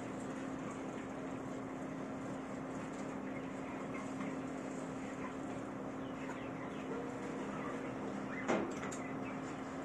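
Stepper motors of a DIY plasma CNC table driving the gantry and torch head with no arc lit, a quiet steady hum; the Z axis runs on a DSP stepper driver for smoother, quieter motion. A brief sharp sound stands out about eight and a half seconds in.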